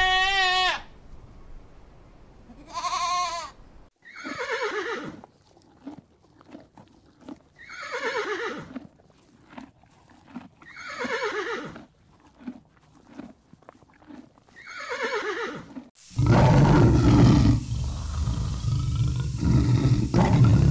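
A goat bleats twice with a wavering tone, then a horse whinnies four times, each call falling in pitch, with a few small clicks between. About sixteen seconds in, a big cat starts roaring and growling, much louder, in low rough pulses.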